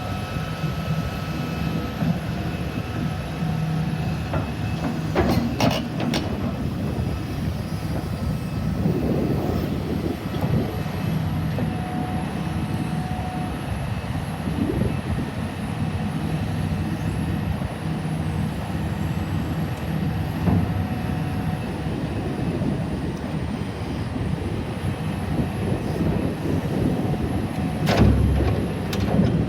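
Diesel engine of a 2006 Hitachi ZX350LC-3 hydraulic excavator running steadily. Sharp knocks come about five to six seconds in, and a heavy thump comes near the end.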